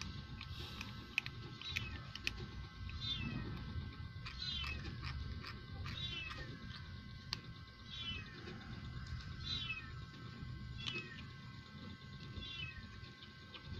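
Kitten meowing over and over: short, high meows that fall in pitch, about every second and a half. Sharp clicks from dry cat food being crunched come in between.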